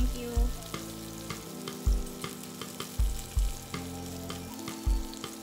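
Shrimp sizzling in hot oil in a nonstick frying pan as they are stirred with a spoon. Underneath is background music with a low thumping beat.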